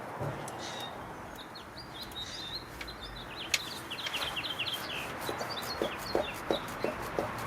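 Birds calling over a steady background hiss: many quick, high chirps, then in the last two seconds a run of short, low calls at about three a second.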